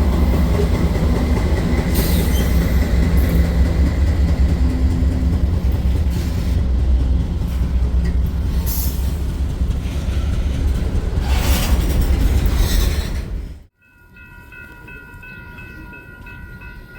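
A freight train passing close by: diesel locomotive engines running under the rumble of steel wheels on the rails, with a few brief hissing or squealing bursts. About three-quarters of the way through it cuts off abruptly, and a quieter, steady multi-note train horn chord sounds.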